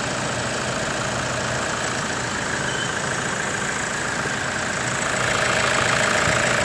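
Toyota Hilux engine idling steadily.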